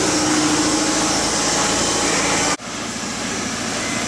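Steady machine noise in a body shop: a loud, even hiss with a low hum under it. It cuts off abruptly about two and a half seconds in, and a slightly quieter steady noise of the same kind follows.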